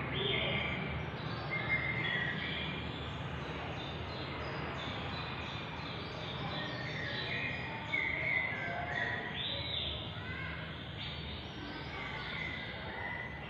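Birds chirping, with many short calls and one rising-and-falling call near the end, over a steady low background hum.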